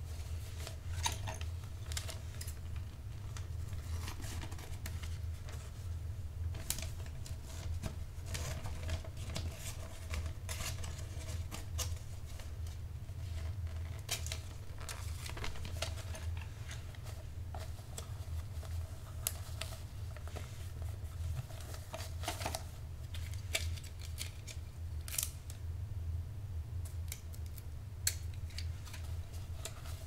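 Scissors cutting wrapping paper close up, with the paper crackling and rustling: an irregular string of sharp snips and crinkles over a steady low hum.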